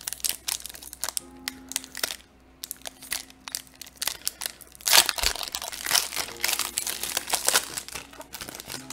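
Foil wrapper of a Magic: The Gathering booster pack crinkling as it is handled and opened, with a loud burst of crackling about five seconds in.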